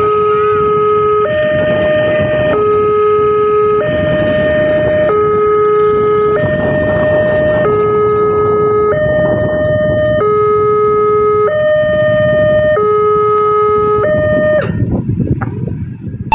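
Railway level crossing warning alarm sounding a steady two-tone alternation, each note held about a second and a quarter, over the loud rumble of a passing train. The alarm stops about fourteen and a half seconds in, and the train noise dies away shortly after.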